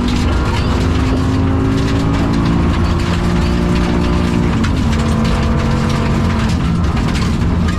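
Rally car engine under hard acceleration, heard from inside the car, pitch climbing for about four and a half seconds, then dropping sharply at a dog-box upshift and pulling again. The engine is running with a bad misfire and is down on power. Sharp ticks and rattles from the gravel road run throughout.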